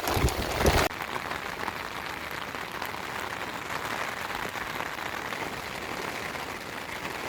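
Steady rain falling and pattering on surfaces, an even hiss of many tiny drops. Just under a second in, a louder rumbling wind-and-water sound cuts off abruptly and the rain carries on alone.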